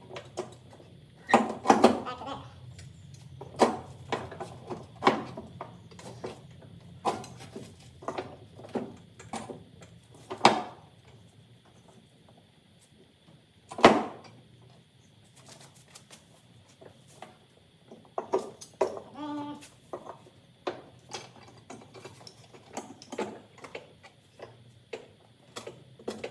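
Irregular metal clanks and knocks from working a belt around the pulleys of a John Deere 72-inch mower deck, with one louder knock about halfway through.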